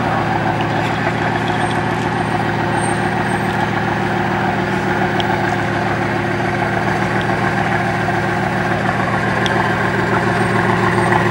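Bugatti Vision GT concept car's engine idling steadily with an even, unchanging pulse.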